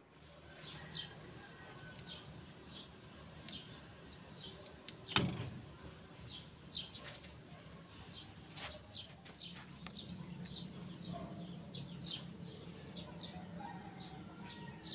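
Birds chirping over and over, with a steady high insect hum behind them. About five seconds in comes a single sharp snap as the popsicle-stick mini compound bow shoots a skewer arrow into the target.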